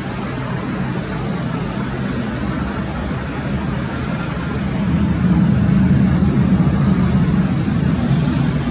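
MiG-29 jet engine roar, a steady rumble with a hiss on top that swells louder about five seconds in and eases near the end.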